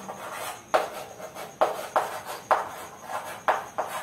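Chalk writing on a chalkboard: a string of scratchy chalk strokes and taps, the sharpest about once a second.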